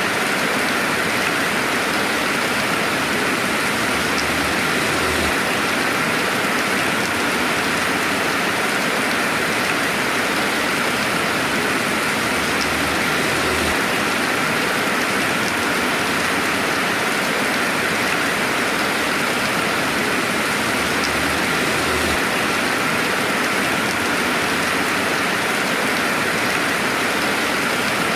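Steady rainfall with no thunder: an even hiss of rain with no breaks, with a faint low rumble now and then.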